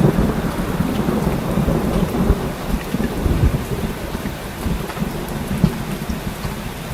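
Heavy rain pouring steadily, with thunder rumbling low underneath; the rumble slowly dies down.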